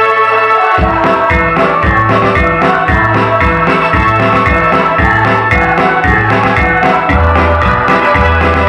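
Women's choir singing in unison over an electronic organ or keyboard accompaniment with a steady bass line.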